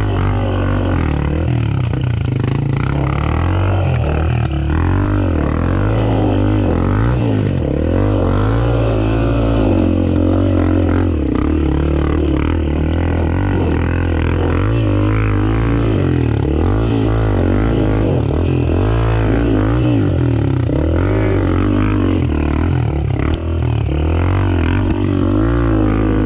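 Dirt bike engine running under varying throttle, its pitch wavering up and down with steady low drone bands that shift in steps as the revs change.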